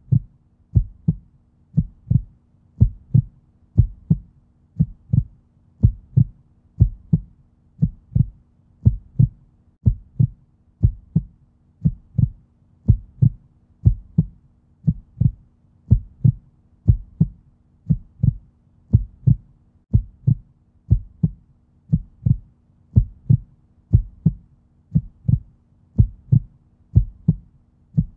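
Heartbeat sound effect: a steady lub-dub of low thumps, about one beat a second, over a faint steady hum.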